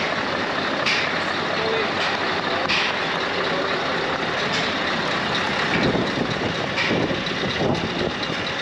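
Heavy recovery truck's diesel engine running under load as the truck is driven onto a steel wash ramp.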